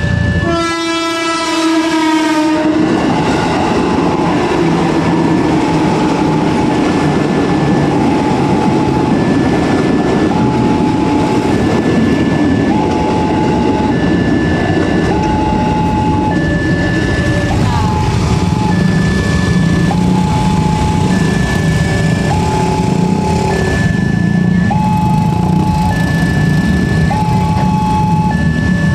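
A train passing a railway level crossing. In the first couple of seconds a train horn blast falls in pitch as the train goes by, followed by the steady rumble and clatter of the train running past. Throughout, the crossing's electronic warning alarm sounds alternating high and low tones, about one a second.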